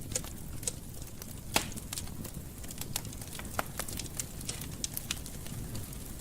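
Wood fire crackling in a fireplace: irregular sharp pops and snaps over a low steady rumble, with one loud pop about one and a half seconds in.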